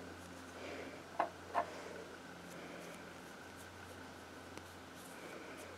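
Paintbrush faintly brushing a coat of matte decoupage glue over paper on a wooden clothespin, with two short sharp clicks a little over a second in.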